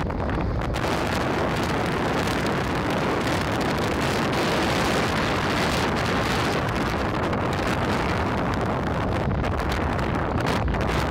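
Strong wind buffeting the camera's microphone: a loud, steady rush of noise with no let-up.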